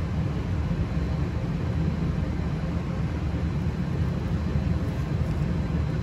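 A steady low rumble fills the background, with a few faint small clicks about four to five seconds in as channel-lock pliers work the sensor tip loose.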